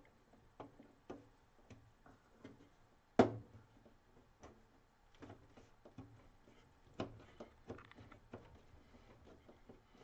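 Faint, scattered small clicks and taps of hands fitting a 486 CPU into its quick-release socket inside a computer case, with one sharper click about three seconds in.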